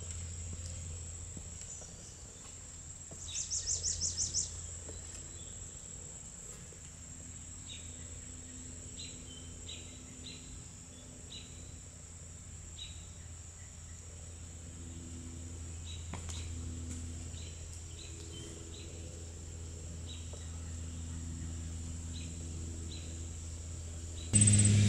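Summer garden ambience: insects keep up a steady high-pitched drone while birds give short scattered chirps, with one rapid trill about three seconds in. A low steady hum runs underneath, and right at the end a much louder sound cuts in abruptly.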